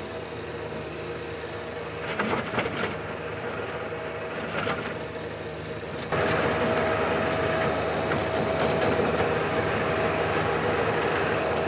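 John Deere 1025R subcompact tractor's three-cylinder diesel running steadily under load, driving a rear PTO tiller through sod, with a few brief knocks along the way. It gets louder about six seconds in.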